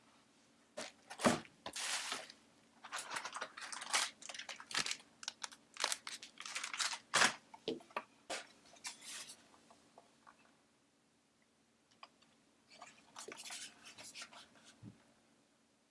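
Packaging being unwrapped and handled: crinkling, rustling and tearing noises in quick irregular bursts. A long spell fills most of the first ten seconds, then a shorter spell comes near the end.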